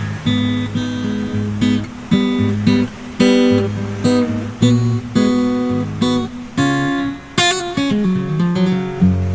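Background music: acoustic guitar playing strummed and picked chords.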